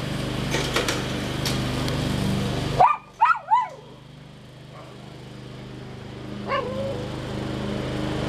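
Riding lawn mower engine running steadily, cutting high grass. A dog barks three times in quick succession about three seconds in, and once more faintly later.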